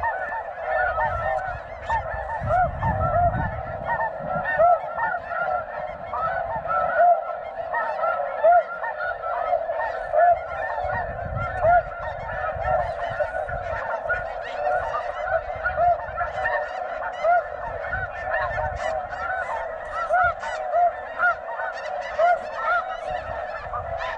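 A large flock of snow geese calling overhead: a dense, unbroken chorus of many short, high, yelping honks overlapping one another.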